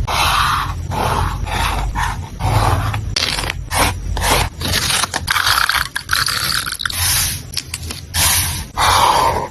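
Paper and stationery being handled while a journal spread is laid out: irregular rustling and scraping strokes of paper and stickers, broken by sharp clicks and taps.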